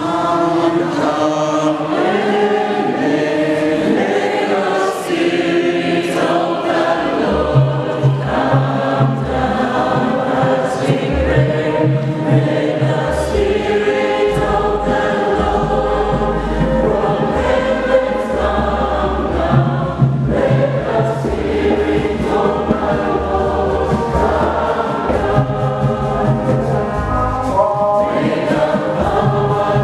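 Church choir singing a hymn in harmony through microphones, with deep bass notes joining about seven seconds in.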